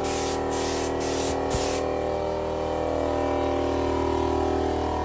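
Gravity-feed paint spray gun spraying primer in several short hissing bursts, about two a second, that stop about two seconds in. A steady hum runs underneath throughout.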